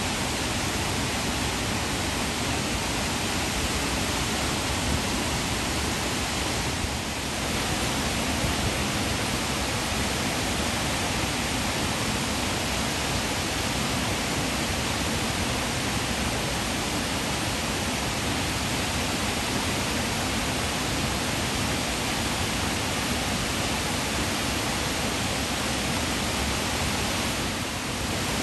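Water pouring over a dam spillway and down rocky falls, a steady, even rush of falling water.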